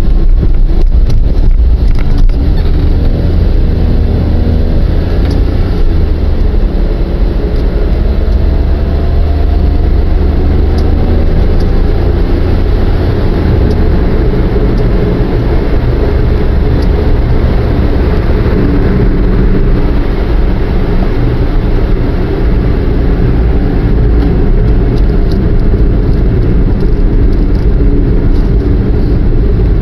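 Car engine and road noise heard from inside the cabin as the car accelerates away from a toll gate onto an expressway: a rising engine note in the first half, then a steady drone of engine and tyres at cruising speed.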